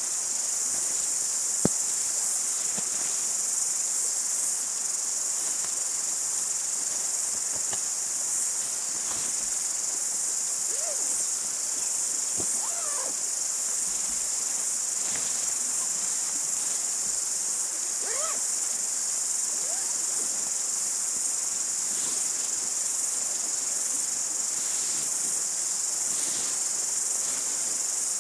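A steady, high-pitched chorus of insects chirring without a break, with a few faint short rising calls over it and one sharp click about two seconds in.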